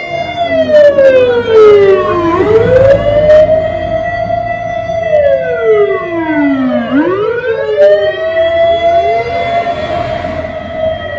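Modified fire-engine siren: several siren wails overlap, each sweeping slowly down in pitch and back up again, with a few sharp clicks.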